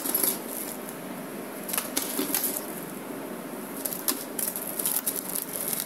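Small objects being handled by hand: scattered light clicks and taps with a faint rustle, a few near the start and about two seconds in, then more from about four seconds on.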